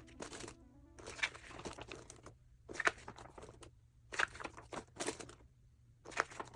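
Model kit packaging crinkling and rustling in repeated short bursts with pauses between, as the box and its plastic-bagged parts are unpacked.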